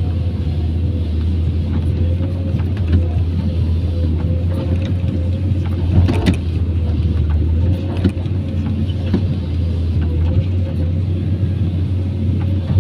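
Hydraulic excavator's diesel engine running steadily under load, heard from the cab as a constant low hum with a thin steady tone above it. Scattered knocks of the bucket working rock and rubble come through it, the sharpest about six seconds in.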